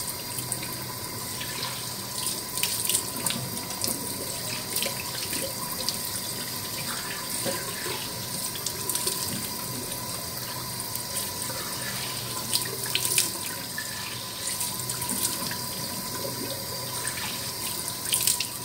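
Bathroom tap running into a sink while hands splash water onto the face, rinsing off a mud face mask, with irregular splashes over the steady stream.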